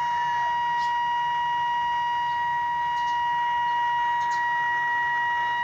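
A steady, unbroken high-pitched test tone with fainter overtones, played through an amplifier and speaker during a test of its tone control.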